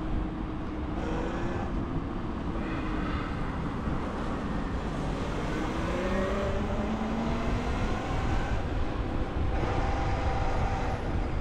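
Vehicle noise on the move: a steady rumble of wind and road, with a motor whine that glides up in pitch a few times.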